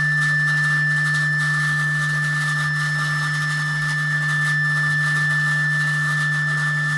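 Steady electronic drone from an electric guitar laid flat and run through effects pedals: a strong low hum held without a break, with a high whistling tone and a hiss above it.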